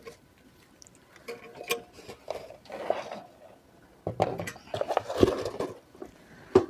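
Handling noises: scattered clicks, knocks and rustles as a stainless-steel gas stove's braided hose and padded carrying case are handled and set down on a wooden table, busiest in the second half.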